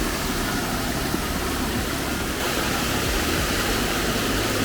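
Steady rush of falling water from Lulumahu Falls, a continuous even hiss with no breaks.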